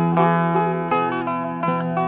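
Background music on a plucked string instrument: picked notes over a steady low drone.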